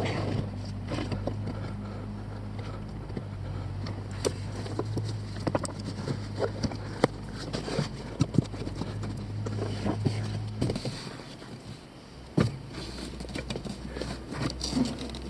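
Irregular sharp clicks and knocks of hand tools and metal parts being handled during repair work, over a steady low hum that stops about two-thirds of the way through.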